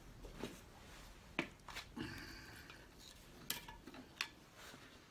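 Light metallic clinks and taps as a slim steel tool is worked in a bolt hole of a lorry front hub to lever out broken bolt pieces: about seven sharp, irregular clicks, one about two seconds in ringing briefly.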